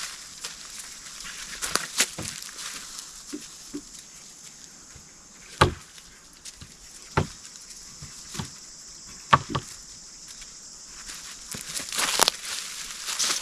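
Scattered sharp knocks and snaps, a handful of louder ones several seconds apart, over a steady high hiss.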